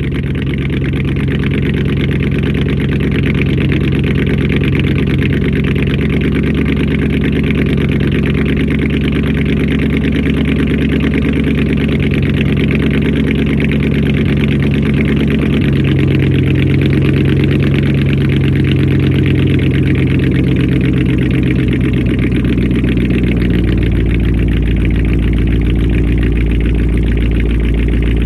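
Car engine idling steadily just after its first start in a week. The idle note changes about two-thirds of the way through.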